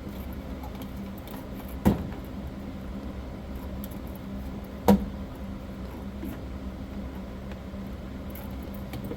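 Handling of computer cables and hardware while connecting them: two sharp knocks about three seconds apart, with a few light clicks, over a steady low hum.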